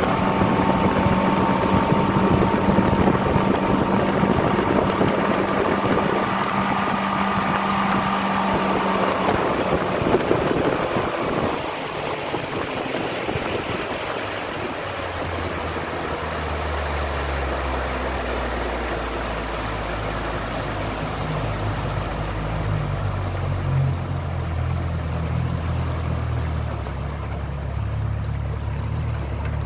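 Yamaha 60 outboard motor running at speed with water rushing and spraying behind the boat. About ten seconds in the engine note drops as it is throttled back, and it carries on at low speed, a lower steady tone under the sound of the water.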